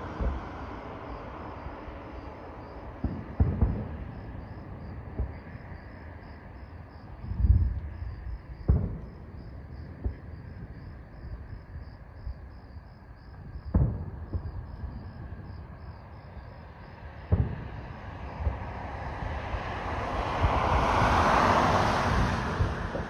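Distant fireworks shells bursting, about five muffled booms several seconds apart, over crickets chirping steadily. Near the end a car passes, a rush of noise that swells and fades.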